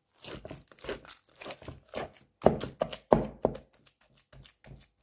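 A large ladle pounding and mashing boiled chicken, potatoes and chana dal in a pot: a run of irregular soft thuds and squelches, the loudest three coming about two and a half to three and a half seconds in.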